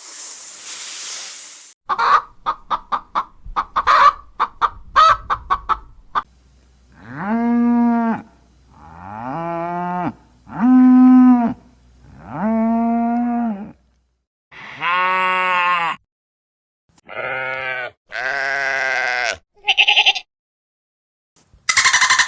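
Sheep bleating: four long, steady bleats in a row, then several shorter, higher-pitched bleats. Before them comes a quick run of short clicking calls, and a harsh noisy burst begins right at the end.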